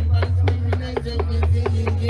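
A dancehall riddim played loud over a sound system, with heavy bass, a held keyboard-like tone and a quick, steady percussive beat of about four to five hits a second.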